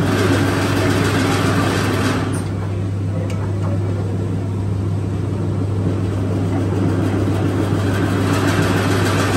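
Leaf-spring bending press running with a steady, strong hum from its motor or pump. A rushing noise rises over the hum in the first two seconds and again near the end.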